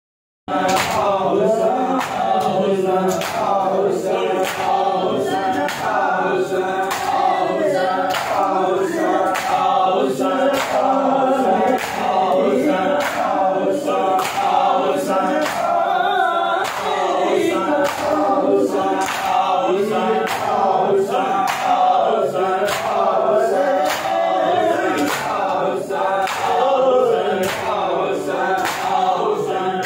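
A crowd of men chanting a nauha together in a mourning lament, kept in time by their own rhythmic chest-beating (matam): sharp open-hand slaps land together a little more than once a second.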